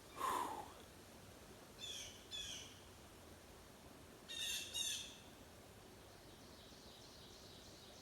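Blue jays giving harsh jeering calls: one loud call at the start, then two pairs of calls, the second pair the louder. The man hearing them takes such calls as birds signalling a predator nearby.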